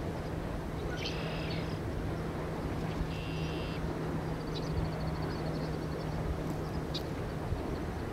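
Outdoor wind noise with a steady low hum that stops about seven seconds in, and a small bird giving a short buzzy call twice, about a second in and again about three seconds in.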